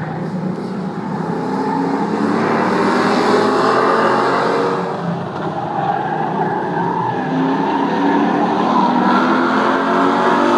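Several race cars running hard around a circle track, their engines rising and falling in pitch as they pass, with a brief dip in level about five seconds in.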